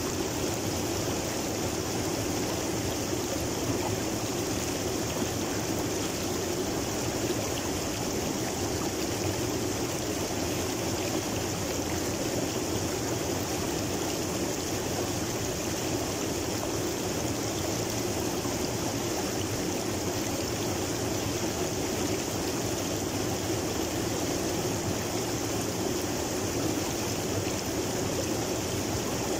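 River water flowing steadily over and around rocks and boulders.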